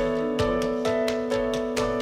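Background music with a steady beat: notes struck about twice a second over a held low note.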